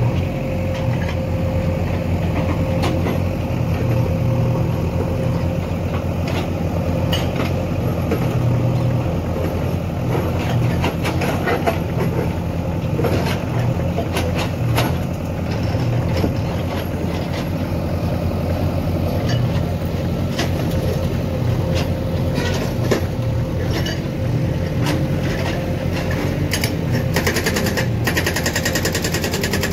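JCB 3DX backhoe loader's diesel engine running steadily under load while digging, with scattered knocks and clatter from the bucket working broken rock and soil.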